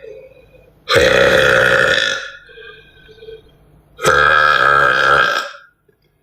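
A woman belching twice: two long, loud burps of more than a second each, the second about three seconds after the first.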